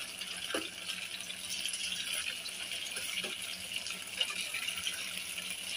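Egg omelettes frying in shallow hot oil in a metal pan, a steady sizzling hiss with a few faint clicks from a metal spatula. The eggs are still cooking, not yet crisp.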